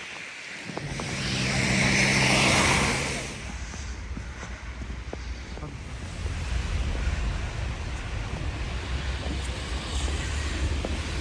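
A car passing close by: its tyre hiss and engine noise swell to a peak about two seconds in and fade away, leaving a steady low rumble.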